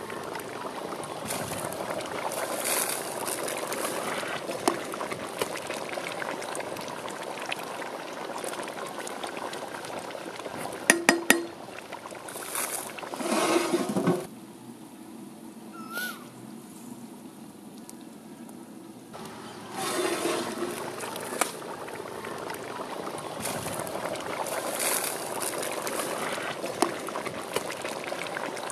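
A pot of chicken gravy bubbling and steaming over a wood fire, with a quieter stretch in the middle. A few sharp metal clinks, the loudest sounds, come about eleven seconds in.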